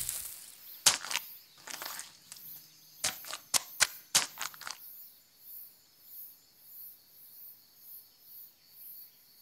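Several sharp pops and clicks in the first half, then a faint, high insect-like chirring pulsing in a steady rhythm: an animated soundtrack's sound effects and night ambience.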